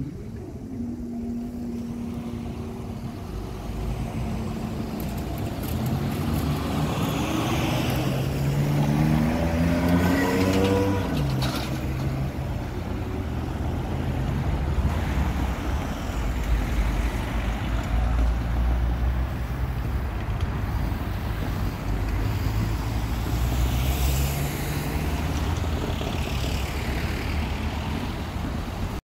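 Road traffic driving over a level crossing after the barriers have lifted: car engines pulling away and passing, with tyre noise. The loudest moment is about ten seconds in, as one vehicle's engine note climbs while it accelerates.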